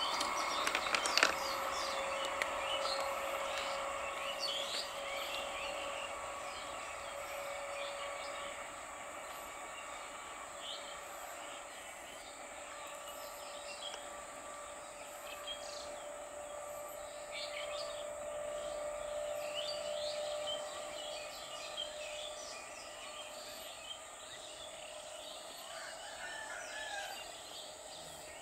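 Birds chirping over a steady electric hum from a distant EMU local train, which fades and rises slightly in pitch. A sharp click about a second in.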